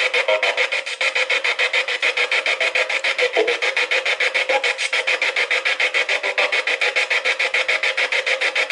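Spirit box sweeping rapidly through radio frequencies: hissing static chopped into very regular bursts, about eight a second.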